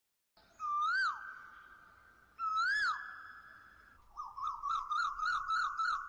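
Whistled bird-call sound effect: two clear whistles that rise and then fall, each leaving a fading held tone, followed by a rapid warbling trill of about four pulses a second.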